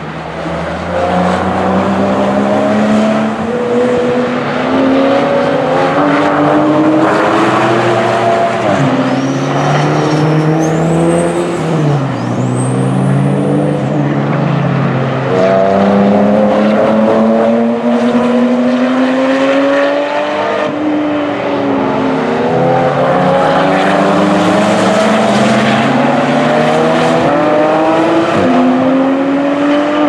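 Several Porsche sports car engines running hard on a racetrack, overlapping as cars follow one another, each note climbing steadily in pitch under acceleration and dropping sharply at upshifts. A few brief high squeals sound over them about a third of the way in.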